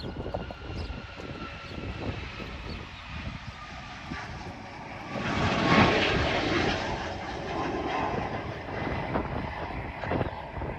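Jet airliner engines: a high whine that falls slightly in pitch over a low rumble, swelling into a loud roar about five seconds in that peaks a second later and then eases.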